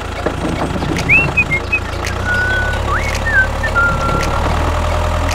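Tractor engine running steadily, its low hum swelling about two seconds in, with a few short high whistle-like chirps over it in the middle.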